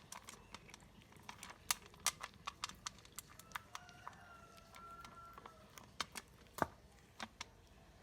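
A cat chewing food, irregular sharp smacking clicks about two or three a second, from a stray cat whose jaw is broken.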